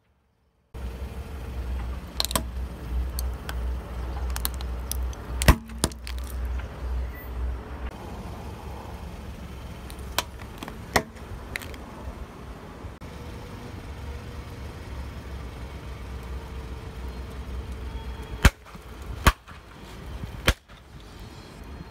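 A car tyre rolling slowly over small plastic objects on asphalt, over the car's low rumble: scattered sharp cracks and snaps as LED tea lights and a plastic toy are crushed. Near the end, three loud pops as liquid-filled long modelling balloons burst under the tyre.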